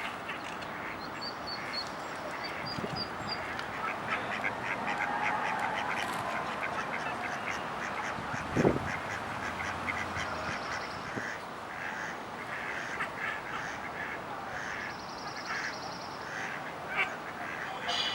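A mother duck and her ducklings calling in rapid runs of short quacks and peeps, with one sharp thump about halfway through.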